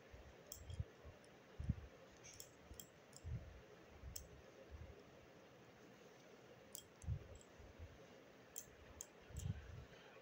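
Faint handling sounds of drawing with chalk on a black board: scattered light clicks and a few soft low knocks as the hands and chalk work the surface.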